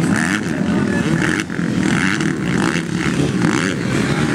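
Several motocross bike engines racing together over a bumpy dirt track, their revs rising and falling as the riders throttle on and off over the whoops and jumps.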